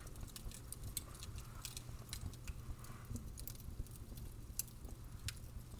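Fire crackling: sharp, irregular pops and snaps over a steady low rumble, with a few brief soft hisses.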